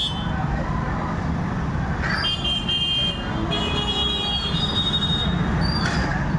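Road traffic rumbling steadily, with a vehicle horn sounding in two short toots about two seconds in.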